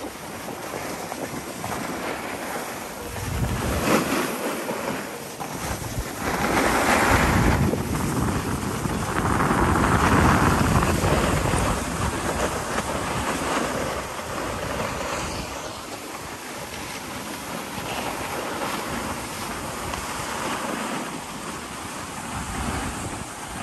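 Wind rushing over the microphone and skis hissing over packed snow during a run down a slope, a steady rushing noise that swells louder a few times, most of all about ten seconds in.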